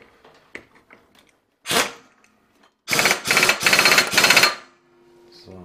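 Impact wrench on its first power setting, hammering the variator nut tight onto a scooter's crankshaft: a short burst, then about a second and a half of rapid hammering.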